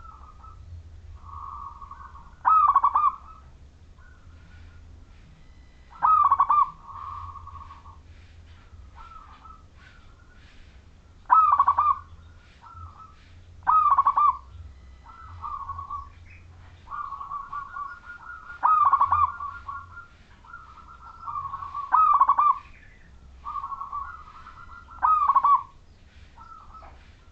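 Zebra dove (perkutut) cooing. Loud phrases of rolling coos repeat every few seconds, with softer, drawn-out coos in between.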